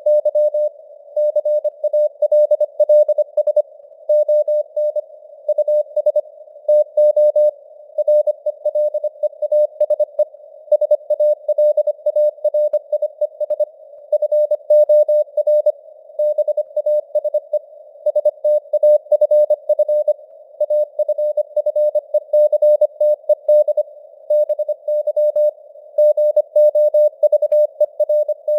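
Morse code (CW) sent at 25 words per minute: a single mid-pitched tone keyed on and off in quick dits and dahs, spelling out news headlines, over a narrow band of simulated radio receiver noise.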